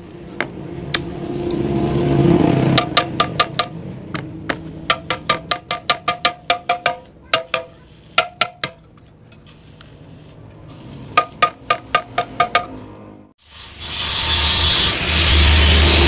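Runs of sharp metallic strikes with a ringing tone, several a second, as of a hammer on the steel body of a motorcycle exhaust muffler being gutted and reworked. About two seconds before the end a loud steady rasping noise starts.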